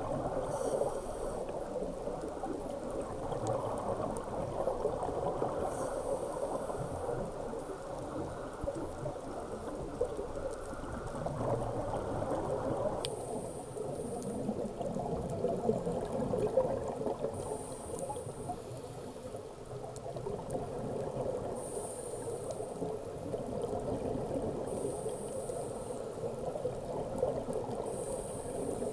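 Underwater scuba breathing through a regulator: a steady bubbling rush of exhaled air, with a short hiss every few seconds.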